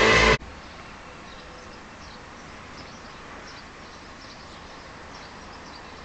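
Music cuts off abruptly, leaving quiet outdoor garden ambience: a steady hiss with faint, high bird chirps.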